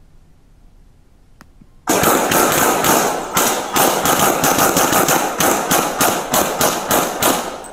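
Police officers' handguns firing a rapid, near-continuous volley of many shots, starting about two seconds in and lasting about five seconds before thinning out, picked up by an officer's body camera.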